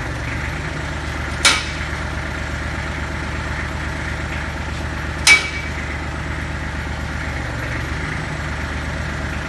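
Kubota diesel tractor engine idling steadily, with two sharp metal clanks, about one and a half seconds in and again near five seconds, the second ringing briefly.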